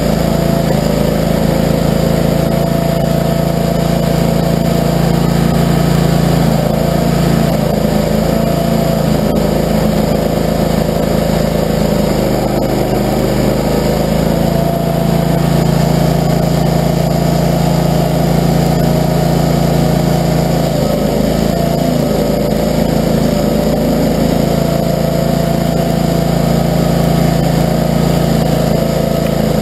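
Barreto tracked stump grinder's gasoline engine running steadily at high speed, its pitch dipping briefly about twelve seconds in.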